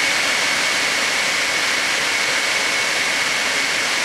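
Universal motor from a Campbell-Hausfeld direct-drive oilless air compressor running free with no load at very high speed: a steady high whine over a loud, even hiss.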